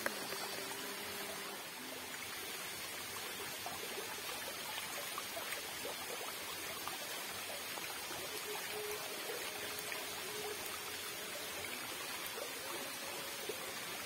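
Fast-flowing water rushing steadily down a narrow concrete irrigation channel.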